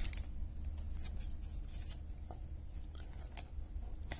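Faint handling of a freshly opened stack of 2021 Topps Series 1 baseball cards: scattered soft clicks and rustles of card stock over a low steady hum, with one sharper click near the end.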